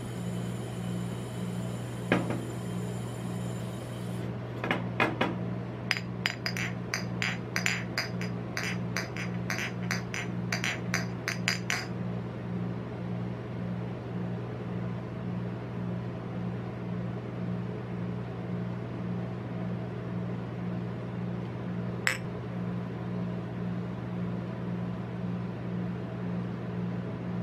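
Steady low hum of a rolled-ice-cream cold plate's refrigeration unit. For several seconds near the start, a run of sharp clinks and taps on the steel pan comes at about three a second, with one more single click later on.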